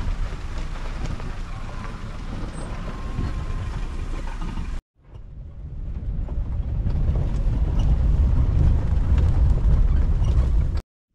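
Safari vehicle driving along a forest track: a steady low rumble of engine and road noise with wind on the microphone. It cuts out abruptly about five seconds in, builds back up, and cuts off again near the end.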